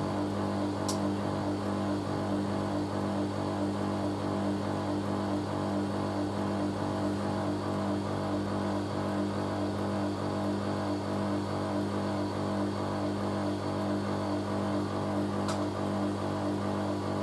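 Hoover A3060 Electronic 1100 washing machine in its final spin, holding a steady speed with an even motor hum and whine. Two faint ticks come about a second in and near the end.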